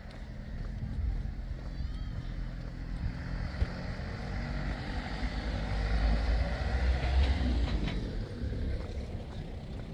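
A road vehicle driving past, its engine and tyre noise swelling to a peak a few seconds in and then fading away.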